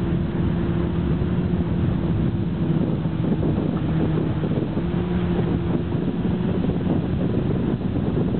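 Motorboat engine running at a steady pitch, with wind buffeting the microphone.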